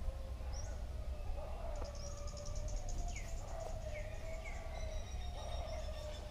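Rural ambience: birds giving short falling chirps and insects trilling high, over a steady low wind rumble on the microphone.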